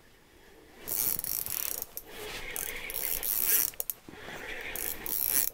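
Fishing reel being cranked as the lure is reeled up to draw a chasing lake trout, its gears and anti-reverse giving a ratchety whirr. It starts about a second in and goes in uneven stretches with brief pauses.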